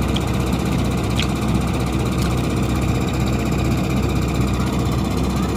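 Excavator's diesel engine running steadily under load as it drags a large fishing boat slowly across the sand.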